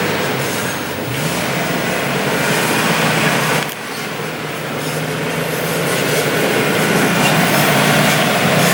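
A 4x4 truck's engine revving up and down under load on a muddy, rocky off-road climb. The revs drop briefly about three and a half seconds in, then build again.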